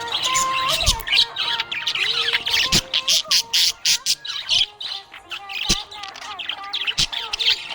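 Budgerigar chirping and warbling: a fast, busy run of sharp chirps and twittering notes.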